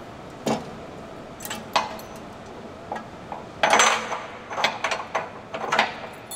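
Metal winch support bracket being handled and set into place by hand: irregular metal clanks and clinks, the loudest cluster about halfway through, over a steady workshop hum.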